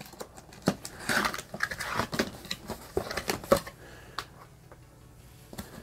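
Cardboard box being opened by hand: a tape seal peeled and flaps folded back, with rustling and scraping and a run of sharp taps and clicks over the first few seconds, then quieter handling.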